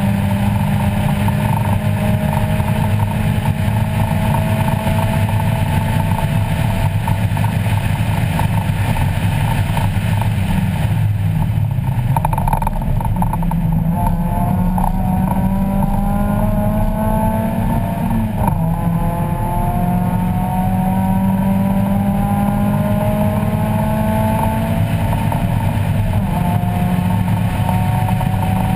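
1994 Mazda Miata's 1.8-litre four-cylinder engine, heard inside the cabin, pulling hard on track. Its pitch climbs slowly through a long pull, dips about twelve seconds in, then rises again in pulls broken by sharp drops around eighteen and twenty-five seconds in.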